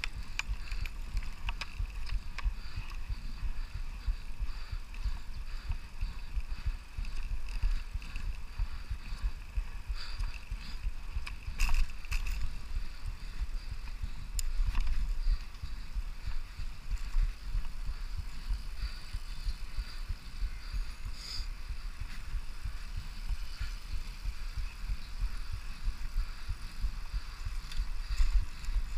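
Wind rumbling and buffeting on the microphone of a camera riding along on a Brompton folding bike, with a faint steady high whine and a few sharp clicks, the loudest about midway.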